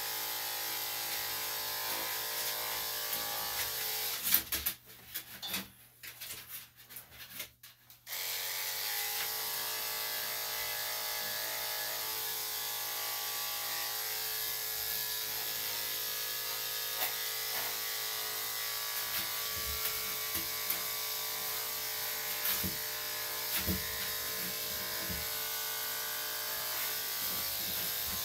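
Electric dog grooming clippers fitted with a #5 blade, running with a steady motor hum. They cut out about four seconds in, with a few knocks, and start again about four seconds later.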